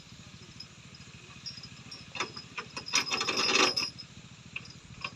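An engine runs steadily in the background. About two seconds in come a run of knocks and clicks, then a louder scraping rub lasting under a second.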